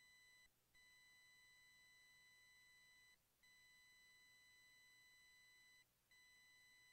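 Near silence except for a faint, steady, high electronic tone that breaks off briefly about every two and a half seconds.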